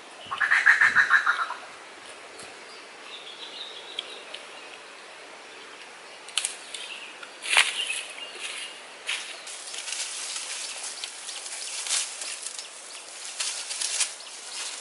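Footsteps crunching and rustling through dry leaf litter and banana and bamboo debris, with many sharp crackles from about six seconds on. Near the start there is a short, loud burst of rapid pulses.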